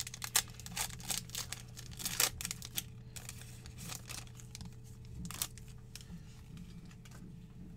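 Foil trading-card pack wrapper being torn open and crinkled by hand, crackling densely for about three seconds, then lighter rustling and ticks as the cards are slid out of the wrapper.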